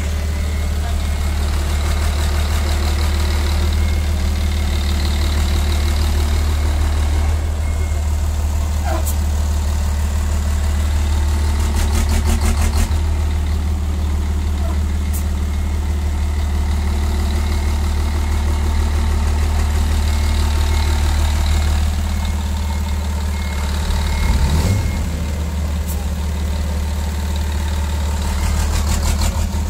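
Mercedes-Benz race truck's diesel engine idling steadily, with one brief rise in pitch late on.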